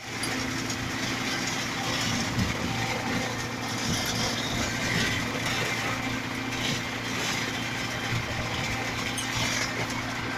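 A concrete pump running steadily while it pushes concrete out through the delivery hose: a constant engine drone with a few light knocks.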